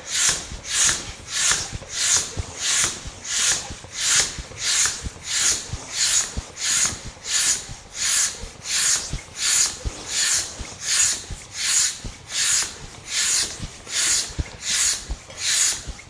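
Bicycle pump being worked fast, a rhythmic hiss of air with each stroke, about one and a half strokes a second, inflating a bicycle tube to 80 PSI.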